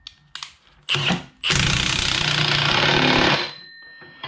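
Milwaukee cordless impact wrench hammering the pinion nut down on a Ford 8.8 axle. There is a brief burst about a second in, then about two seconds of continuous hammering. With a crush sleeve eliminator fitted, the nut goes no further once it is tight.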